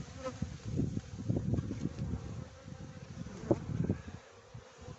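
Honeybees buzzing around an open hive, with knocks and scrapes of wooden frames and a metal hive tool being shifted in the box; one sharp knock about three and a half seconds in.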